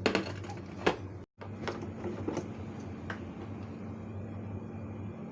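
A few sharp knocks and clicks of cookware being handled in a kitchen, over a steady low hum, with the sound cutting out briefly about a second in.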